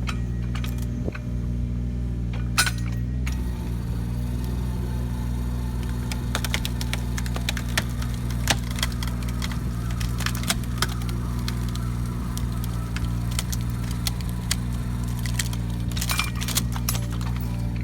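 A Takeuchi TB219 mini excavator's diesel engine running steadily while a hydraulic cone splitter screws into a log. The wood cracks and splinters in clusters of sharp cracks, most of them in the middle and again near the end.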